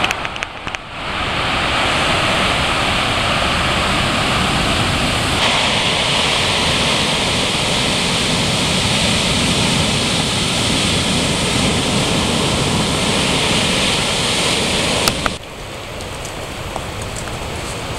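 Heavy ocean surf breaking: a loud, steady rush of wave noise. About fifteen seconds in it cuts off suddenly to quieter outdoor ambience with a few faint ticks.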